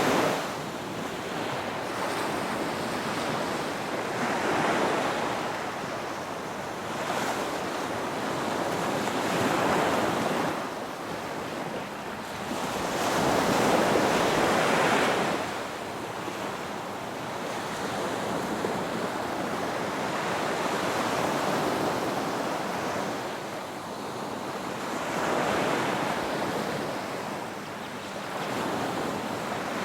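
Ocean surf: waves rolling in and washing back in slow surges every four to six seconds, the loudest surge about halfway through.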